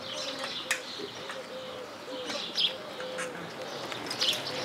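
Outdoor birdsong: small birds chirping, over a run of short, low notes that repeat several times a second. There is one sharp click a little under a second in.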